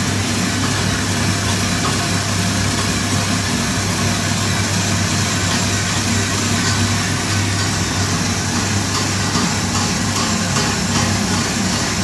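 Small 12 V, 200 RPM Johnson geared DC motor running steadily, turning the vertical shaft that drives the cleaning brushes up inside the tank: a steady hum with an even hiss over it.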